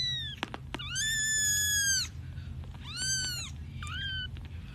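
Kitten meowing repeatedly in high, thin calls: one long meow of about a second, then two shorter ones.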